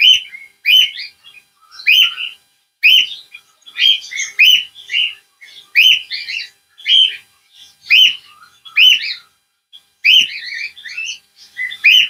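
Cockatiels calling: short, sharp chirping calls repeated about once a second, with a brief pause a little after nine seconds in and then a quicker cluster of calls.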